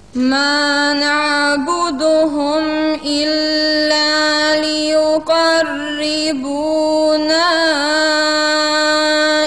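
A young woman's voice in melodic Quran recitation, drawing out one long chanted phrase. She mostly holds a single steady note and adds brief melodic turns about two seconds in and again near the end.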